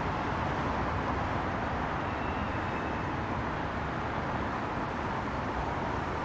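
Steady, even background noise with no distinct events, the same rushing that runs under the speech on either side.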